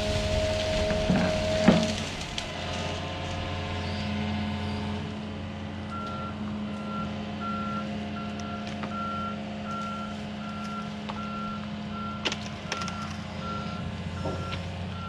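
Excavator's diesel engine running steadily, with a sharp knock about two seconds in. From about six seconds in, its alarm beeps about twice a second as the machine moves.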